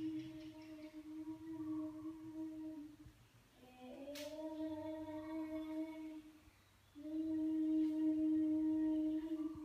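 A person humming three long, steady held notes with short pauses between them, the last one the loudest. A single sharp click comes about four seconds in.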